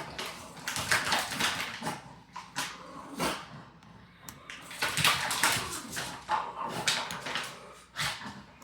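A dog whimpering in short, repeated bursts.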